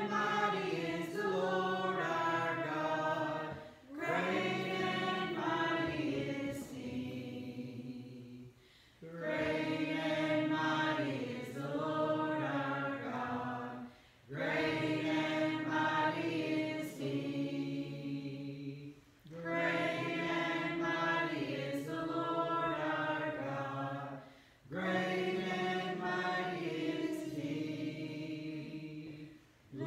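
A church congregation singing a hymn together, phrase by phrase, with a short breath-pause about every five seconds.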